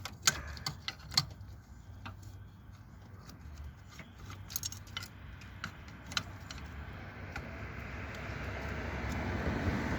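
Scattered sharp metallic clicks and clinks of a bracket, cables and tools being handled around an engine's throttle body, several close together in the first seconds. In the second half a steady rushing noise slowly rises.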